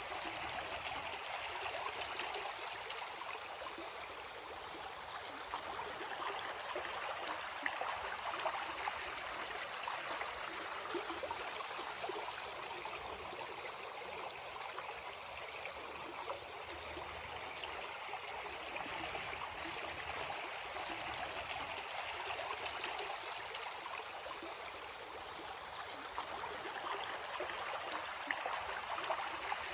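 Creek water running over rocks, a steady rushing with small gurgles and splashes.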